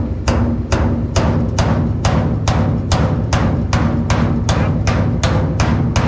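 Music with a steady drum beat, a little over two beats a second, over a continuous bass line.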